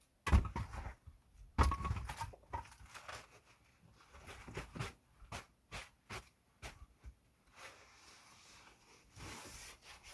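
Heavy thumps and knocks: two loud ones in the first two seconds, then lighter, irregular knocks, and a soft rustle near the end.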